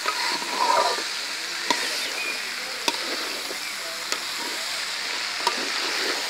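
Black chickpeas frying with green chillies and onion in a metal pan, sizzling steadily while a spatula stirs and scrapes through them. The spatula knocks sharply against the pan about once every second or so, with a longer scrape in the first second.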